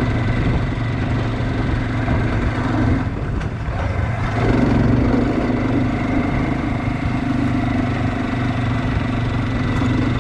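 SYM NHT 200 motorcycle engine running steadily.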